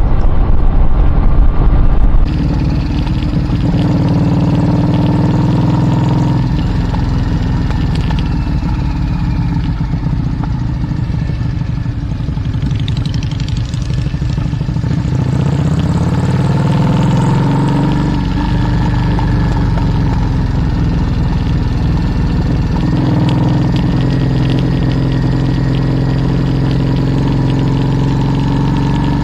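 Vehicle engine running while under way, its pitch rising and dropping several times as it pulls and changes speed. Loud wind noise on the microphone in the first couple of seconds.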